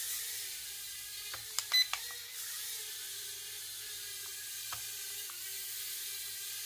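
Holy Stone HS210 micro toy drone in flight, its tiny propellers giving a steady whine that wavers slightly in pitch. A quick run of sharp clicks sounds about one and a half to two seconds in.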